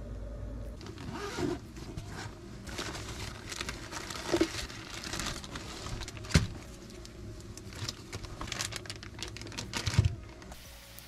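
Plastic bags crinkling and rustling as food is unpacked and handled, with scattered knocks; the loudest two come about six and ten seconds in. A low hum at the start stops about a second in.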